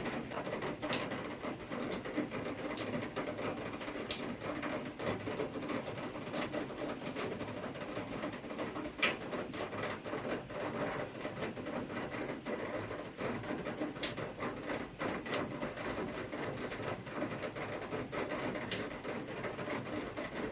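Heavy rain falling steadily, with many sharp drops and drips striking surfaces close by.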